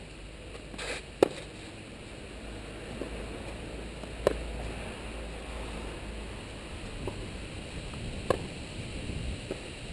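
Tennis rally: a racquet strings hitting the ball with a sharp pop three times, about three to four seconds apart, with fainter hits from the far end of the court in between.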